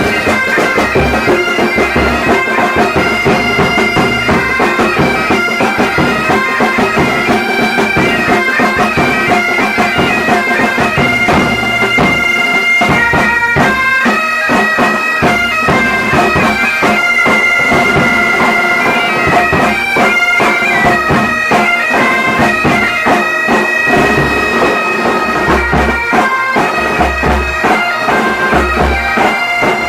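Military pipe band's bagpipes playing a Garhwali folk tune (mangal geet): a steady drone under a moving chanter melody.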